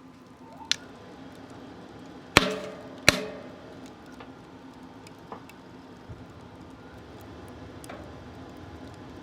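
Wood fire burning in a small smokeless metal stove, with a few sharp crackles and pops. About two seconds in come two loud sharp knocks, under a second apart, each with a brief ringing tail.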